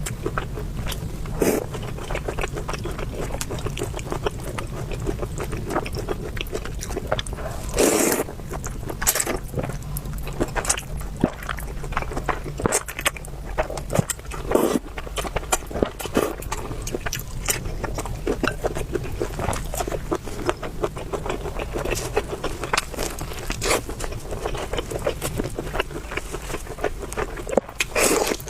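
Close-miked eating sounds: a person chewing, with many small wet mouth clicks and a few longer, louder sounds about 8 and 15 seconds in and near the end, over a steady low hum.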